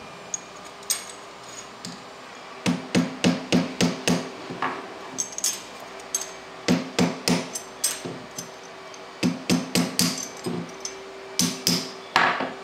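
Sharp metallic strikes in quick clusters of several hits, each with a short ringing tone, separated by pauses of a second or two.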